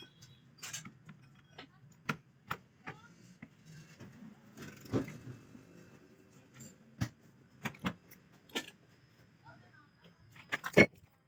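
A series of irregular light clicks and knocks, like small hard objects being handled, with a louder cluster of knocks near the end.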